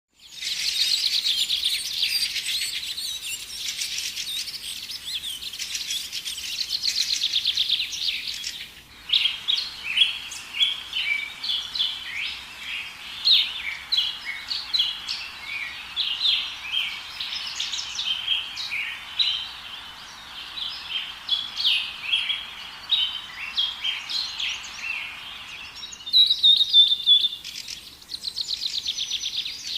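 Many small caged songbirds chirping and twittering together in a dense chorus. It starts as rapid continuous trilling, changes abruptly about nine seconds in to many separate chirps, and shifts back to trilling near the end.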